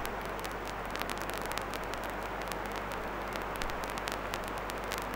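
Steady background noise of a classroom recording: an even hiss with a low electrical hum underneath and scattered faint clicks and crackles.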